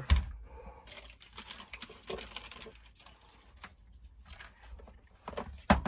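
Crinkling and rustling of the steak's paper and plastic wrapping as it is handled, in a run of quick irregular crackles. A sharp knock comes just at the start and another near the end.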